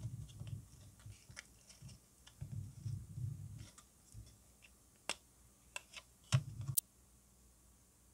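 Small plastic model-kit parts being handled and fitted into a plastic car body: soft rubbing and scraping by the fingers, then several sharp plastic clicks in the second half.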